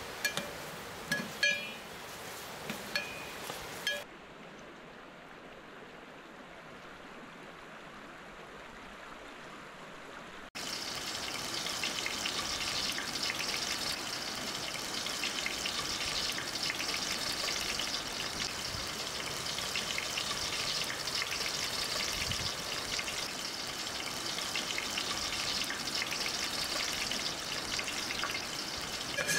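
A metal spoon clinks against a metal pot a few times, with a short ring each time. From about ten seconds in, sliced onions sizzle and crackle steadily in hot oil as they fry.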